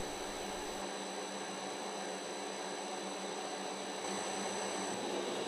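Metal lathe running steadily with the spindle in reverse and the half nuts engaged, taking a single-point threading pass: a steady hum and hiss, a little louder about four seconds in.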